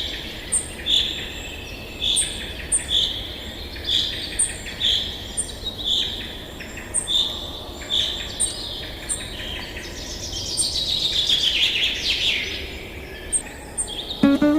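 Birds calling: a short, high call repeated about once a second, and about ten seconds in, a fast run of notes falling in pitch.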